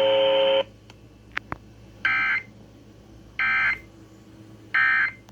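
Emergency Alert System end-of-message signal: three short, shrill bursts of warbling data tones about a second and a half apart, marking the end of the tornado warning broadcast. Before them a steady held tone cuts off about half a second in.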